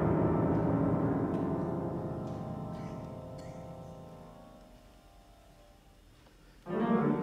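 Steinway grand piano: a loud chord, held with the pedal, dies away over about five seconds. A new low chord is struck near the end.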